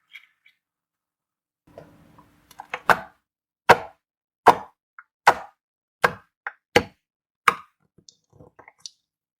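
Clear slime being folded and pressed by hand, giving a run of sharp, wet pops about one every three-quarters of a second, with softer crackles before and after.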